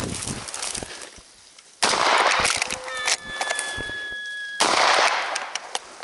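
Two shots from a lever-action 12-gauge shotgun, about three seconds apart, the first about two seconds in. Each blast is followed by about a second of dense noise, and a steady high tone sounds between them.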